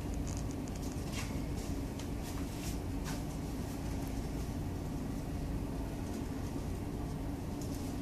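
Ship's engine and hull drone heard inside a passenger lounge of the expedition ship MV Plancius: a steady low hum with a constant held tone, and a few light clicks or rattles, about a second in, around three seconds in and near the end.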